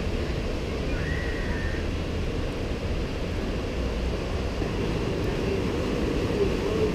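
Steady low rumble of beach ambience, breaking surf with wind on the microphone, with a brief faint high tone about a second in.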